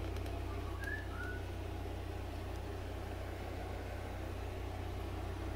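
A steady low hum, with a short whistled phrase of a few gliding notes about a second in.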